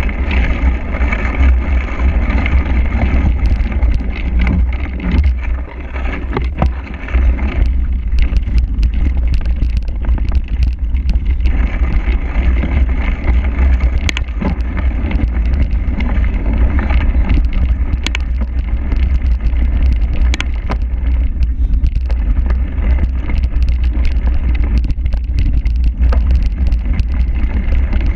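Wind noise buffeting an action camera's microphone as a cyclocross bike rides at speed over rough grass and mud, with scattered clicks and knocks from the bike rattling over the bumps.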